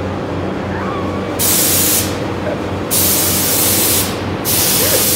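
Compressed air hissing in three loud blasts from an air nozzle, the first short and the last running on, over a steady machine hum.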